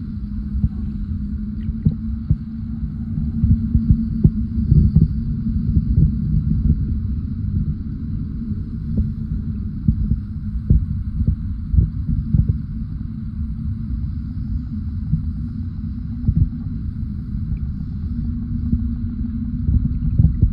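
Underwater sea sound recorded below the surface: a steady low rumble with a continuous hum, and scattered sharp clicks throughout.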